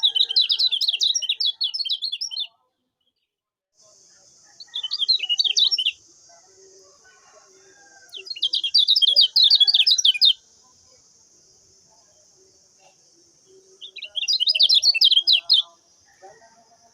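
Kecial kuning, a small white-eye, singing in four quick bursts of rapid, high chattering notes, each one to two seconds long. A steady high hiss runs underneath from about four seconds in.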